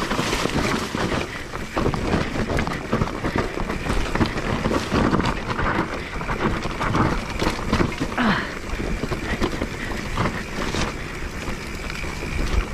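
Mountain bike rolling fast down a rough dirt and stone trail: tyres crunching over loose ground and the bike clattering over bumps, with wind buffeting the camera microphone.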